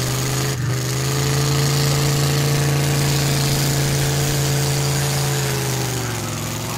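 Pickup truck engine running at a steady raised speed. Its pitch rises slightly about a second in, holds, and drops away near the end. There is a brief knock just over half a second in.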